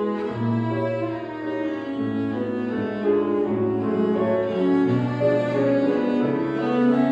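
Cello playing a lyrical melody in long held notes over a piano accompaniment.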